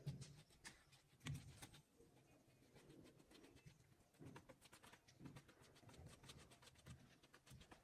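Very faint brushing: a small paintbrush stroking and dabbing liquid onto a wooden cabinet edge, heard as light scratchy ticks with a few soft taps.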